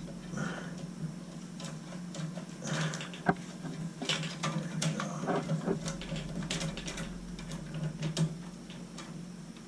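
Scattered clicks and rattles of hand tools and small metal parts being handled, with one sharp click about three seconds in and another near the end, over a steady low hum.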